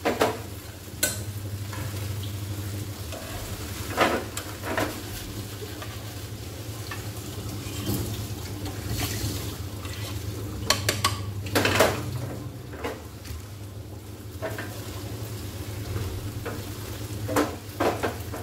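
Spaghetti frying in a pan over a gas flame with a steady sizzle, while tongs and a spatula scrape and knock against the pan every few seconds, with a quick run of knocks about eleven to twelve seconds in.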